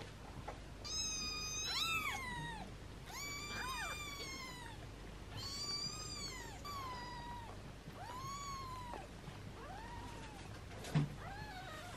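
Newborn British Shorthair kittens mewing, hungry at a syringe feeding: a string of about eight thin, high cries, each rising and then falling in pitch. A short knock near the end.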